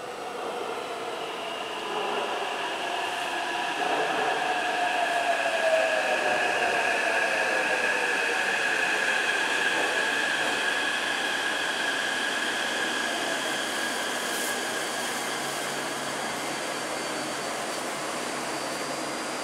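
Taipei Metro C381 train arriving at an underground platform and slowing to a stop. Its running noise swells in the first few seconds, with a whine falling in pitch as it brakes and steady high whining tones over it, then eases as the cars roll slowly past.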